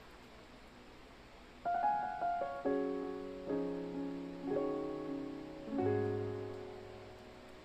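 Background piano music: a few notes start about a second and a half in, followed by chords struck about once a second, each ringing and fading away.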